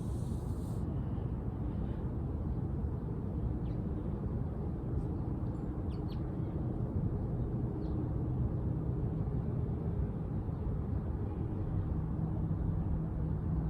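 A few faint, short bird chirps over a steady low rumble, with a low hum coming in near the end.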